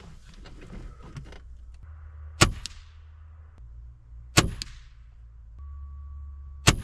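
Three shots from a .22 Gamo Swarm Fusion break-barrel air rifle, about two seconds apart, each a sharp crack followed a split second later by a fainter click.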